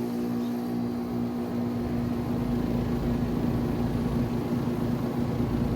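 Trane XR14 central air-conditioner condensing unit running just after start-up: its scroll compressor hums steadily with a low tone, and the condenser fan's rush builds from about two seconds in.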